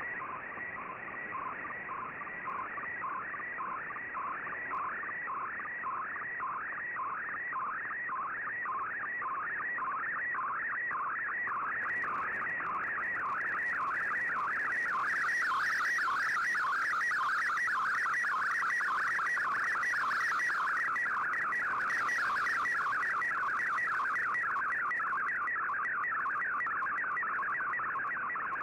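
Shortwave radio digital picture signal (Shortwave Radiogram's MFSK image mode) on an Icom IC-R8600 receiver: a warbling tone that chirps over and over, about two chirps a second at first, running together later, with a faint hiss joining about halfway through.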